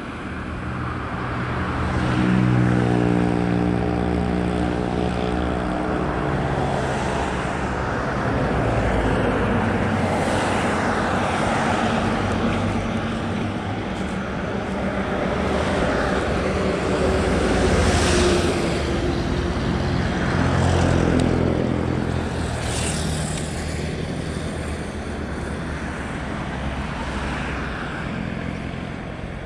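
Road traffic passing close by: a large vehicle's engine drones for several seconds near the start, then several cars go by one after another, their tyre and engine noise swelling and fading.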